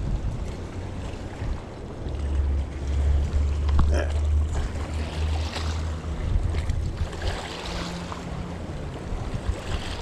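Wind buffeting the microphone in an uneven low rumble, with the soft whir of a spinning reel being cranked.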